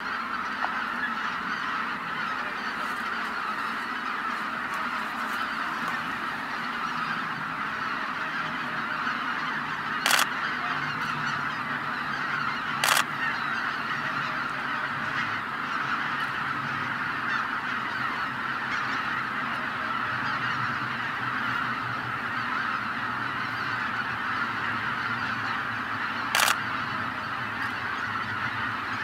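Greater white-fronted geese flying in to their roost: a dense, continuous chorus of honking calls from a large flock. Three brief sharp noises stand out above it, two about a third of the way in and one near the end.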